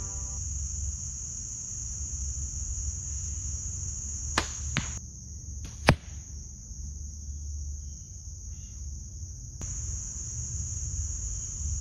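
A compound bow, a Hoyt Torrex XT, is shot: a sharp snap of the string's release about four seconds in, then a softer impact about half a second later as the arrow strikes the target. About a second after that comes a single sharp click, the loudest sound, and crickets trill steadily throughout.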